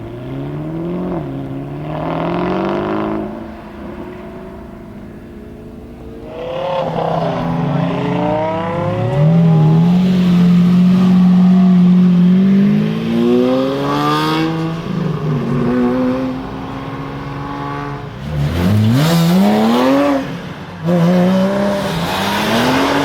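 Supercar engines revving and accelerating hard, the pitch climbing and dropping again several times as the revs rise and fall. The loudest part is a long, held high-rev pull in the middle, and there is a sharp rev-up near the end.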